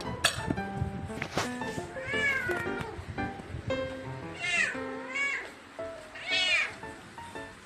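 Domestic cat meowing repeatedly: about four drawn-out meows, each rising and then falling in pitch.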